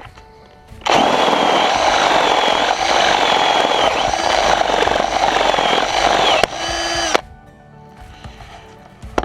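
Hamilton Ultimate cordless drill running under load for about five seconds, its motor whine wavering as the bit bites into the material, then spinning briefly with a steadier whine before stopping suddenly. Background music plays faintly before and after.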